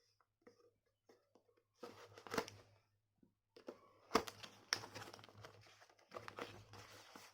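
A small box of earphone packaging being opened by hand: irregular rustling and crinkling with a few sharp clicks, busiest in the second half.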